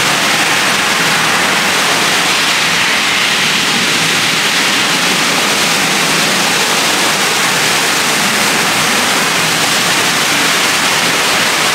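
Jacuzzi water jets churning and bubbling the pool water, with a spray nozzle pouring onto the water: a steady, loud rush of water that does not let up.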